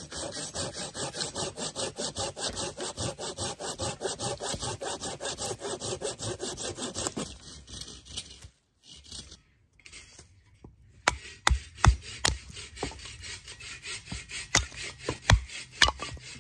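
Folding hand saw cutting through a branch in quick, even strokes, about four a second, for roughly seven seconds. After a short pause comes a series of sharp wooden knocks: a knife being batoned through split wood with a wooden baton.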